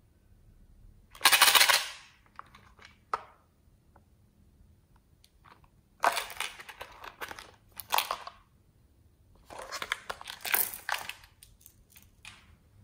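A hard plastic toy phone being handled and pried at: four bursts of plastic rattling and clattering, the first about a second in, with sharp clicks in between.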